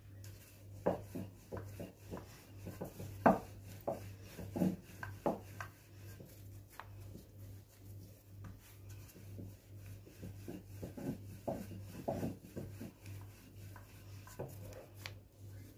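Rolling pin rolling out small rounds of yeast dough on a floured granite countertop: irregular knocks and rubbing as the pin is set down, rolled and lifted, over a steady low hum.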